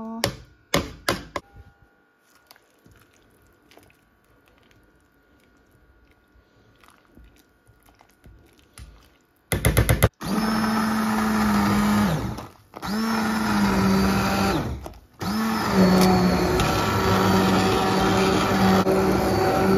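A few knocks at the start as chopped mint is tipped off a plastic chopping board into a stainless steel pot, then a quiet stretch. About halfway through, a hand-held stick blender switches on and whirs steadily as it purées pea soup in the pot. It stops briefly twice, its hum dropping in pitch each time, and then runs on.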